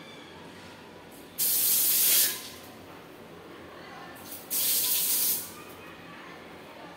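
Handheld bidet sprayer (shattaf) squeezed twice, each time a hissing spray of water about a second long that cuts off sharply.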